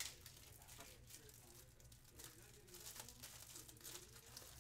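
Near silence: faint room tone with light crinkling and a few soft clicks, one sharper click at the very start.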